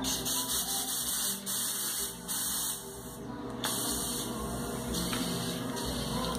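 Compressed air hissing through an air chuck held on a motorcycle tyre's valve, inflating the freshly mounted tyre. The hiss breaks off briefly a few times, the longest break a little past three seconds in.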